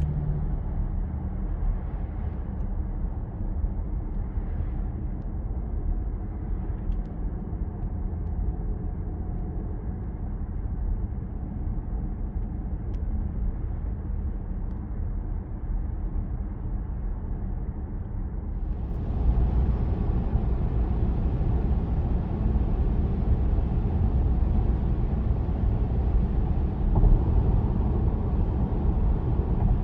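Cabin noise of a Peugeot 408 1.2 PureTech 130 on the move: a steady low road and engine rumble. About two-thirds of the way in it suddenly grows louder and gains a hiss, and stays that way.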